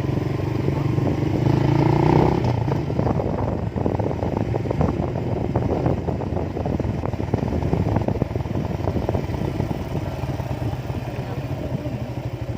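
Motorcycle engine running on the move, with many short knocks and rattles over it; near the end its beat turns even and distinct, as when easing off to low speed.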